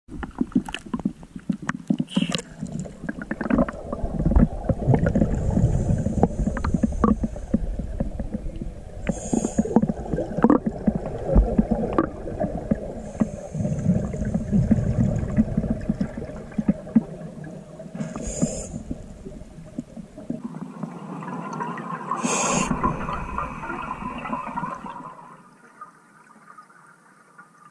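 A scuba diver's breathing heard underwater: exhaled air bubbling and rumbling in repeated surges, with a few sharp clicks. It fades near the end.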